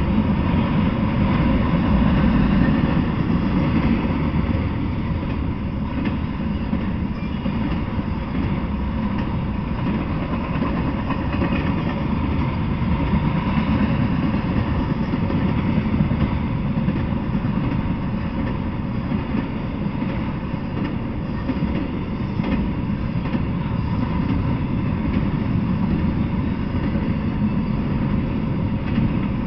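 Intermodal freight train cars, flatcars carrying truck trailers and well cars carrying containers, rolling steadily past: a continuous low rumble of steel wheels on the rails.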